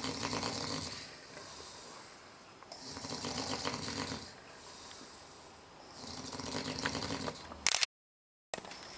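Snoring: slow, rattling snores, each about a second and a half long, coming roughly every three seconds. Near the end a sharp click is followed by a short gap of silence, and another snore begins.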